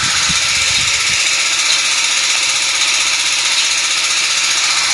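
Heavy rain falling, a dense steady hiss with a fast patter in it.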